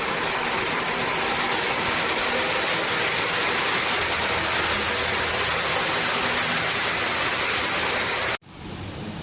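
Steady, loud rushing noise with a faint hum under it, cut off abruptly near the end.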